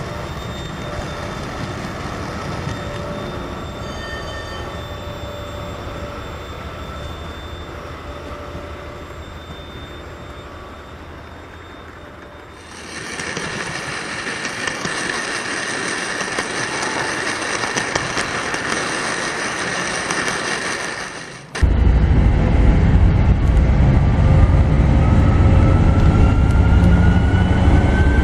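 Dubbed real diesel locomotive sound in three edited sections. First a low engine rumble that fades. About 13 seconds in, a hissing rush cuts in. About 22 seconds in comes an abrupt cut to a much louder, deep engine note with a whine rising slowly in pitch.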